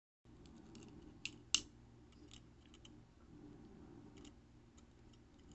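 Quiet room tone with a scattering of light clicks, two sharper ones close together about a second and a half in.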